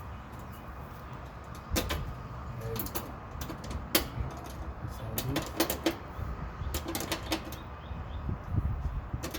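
Irregular sharp clicks and knocks, about a dozen, from hands working the metal hardware of a homemade breaker safety lock on an electrical panel, over a low steady hum.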